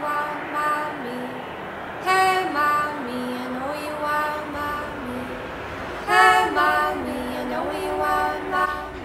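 Background song with a woman singing a melody of held notes that step up and down.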